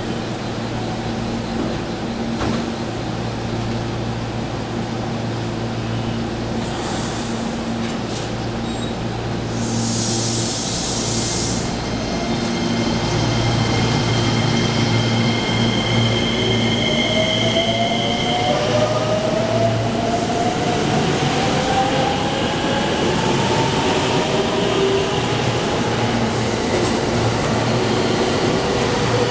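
JR West electric commuter train: a steady electrical hum, two short hisses of compressed air, then the train pulls away with its motor whine rising in pitch and getting louder.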